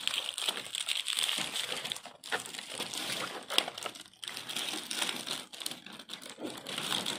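Plastic packaging and small toy accessories being handled: a continuous crinkling and rustling, broken by many small clicks and taps.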